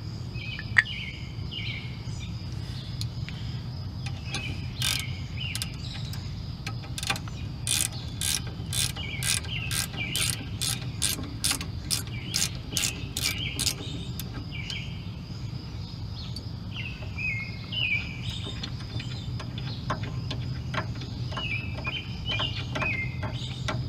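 Hand ratchet and socket clicking as it spins off the 18 mm caliper bracket bolts on a Ford F-150's front brake, in runs of sharp clicks at about two a second, steadiest through the middle. A single sharp knock comes just under a second in.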